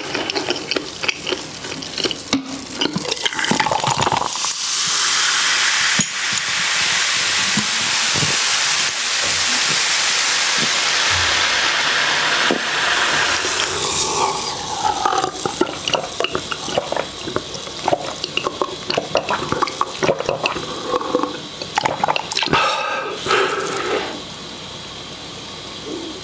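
Close-up mukbang eating sounds: clicking, smacking chewing noises, broken up by about nine seconds of a steady hiss starting around four seconds in, after which the chewing sounds return.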